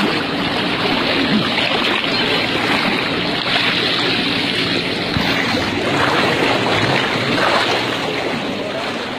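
Steady sloshing and splashing of floodwater as several people wade through it together.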